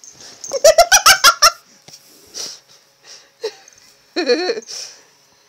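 A person laughing in a quick, loud burst of giggles about a second in, then scattered rustling and a short wavering cry near the end.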